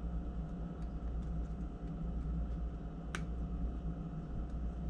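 Small clicks and taps of metal parts being handled on a Toyan FS-L400 model engine's water pump, with one sharp click about three seconds in, over a steady low hum.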